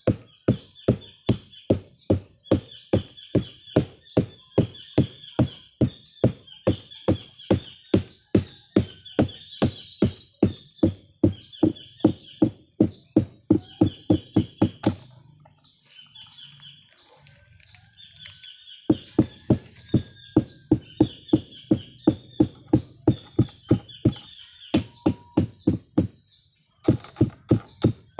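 The stalk of a young sugar palm (aren) inflorescence being beaten with a mallet in rapid, even knocks, a little over two a second, to bruise it and start the sap flowing before tapping. The knocking stops for about four seconds midway and again briefly near the end. A steady high-pitched hum runs underneath.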